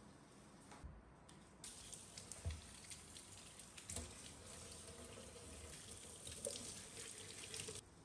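Kitchen tap running into a stainless steel sink, the water splashing over a plant pot being rinsed under it; it starts about one and a half seconds in and is shut off just before the end. A few dull knocks of the pot being handled.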